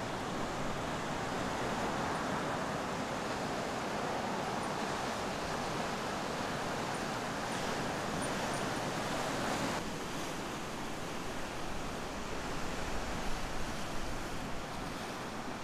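Steady noise of breaking ocean surf with wind on the microphone. The sound changes abruptly about ten seconds in and grows more uneven, with gusty bumps, near the end.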